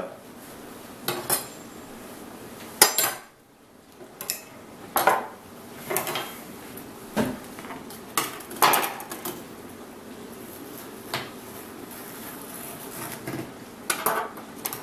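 Steel kitchen knives clinking and clattering as they are handled and set down on a wooden table, and a knife blade knocking against a metal baking pan while cutting a tray of cookie bars. Irregular sharp clinks and knocks, about a dozen, with gaps between them.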